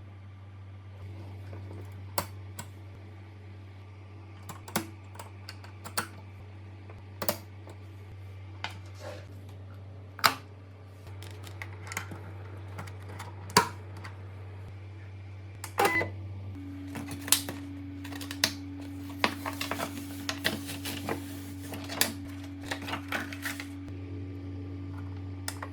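Irregular sharp clicks and taps of small hard parts and tools being handled, over a steady low hum. The clicks come more closely together in the second half, where a steady higher hum joins.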